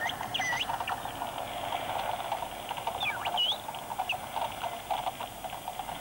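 A school of dolphins heard underwater over submarine sonar: rapid crackling clicks throughout, with a few squeaky whistles sweeping up and down in pitch, a pair about half a second in and more around the middle.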